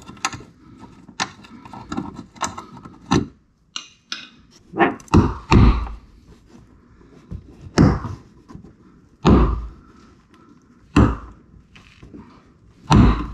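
Plastic wheel-well liner and its clips on a C8 Corvette being worked by hand and with a tool: light clicks, then about eight sharp knocks and thunks, one to two seconds apart.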